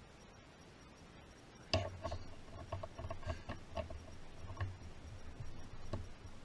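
Irregular knocking and clattering of hard objects being handled and set down, starting suddenly with the loudest knock a little under two seconds in and going on unevenly for about four seconds.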